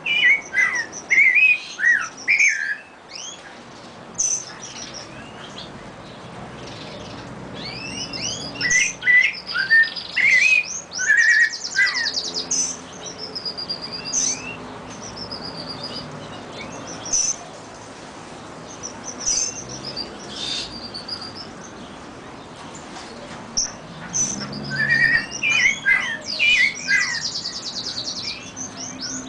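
A chorus of songbirds, canary, brown-backed solitaire (clarín) and curve-billed thrasher (huitlacoche), singing with quick whistled notes and fast high trills. The singing comes in bouts: busy at the start, again from about a quarter of the way in, and near the end, with only scattered single notes in between.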